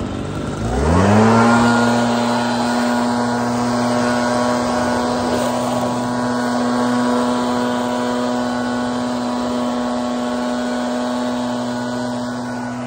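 Gas backpack leaf blower revving up from idle to full throttle about a second in, then running steadily at full throttle while blowing out roof gutters.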